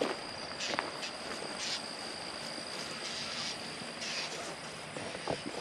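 Steady high-pitched insect drone, with footsteps crunching on the ground about once a second and a few sharp knocks.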